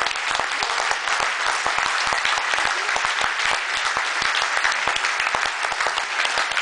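A large audience applauding: dense, steady clapping from many people.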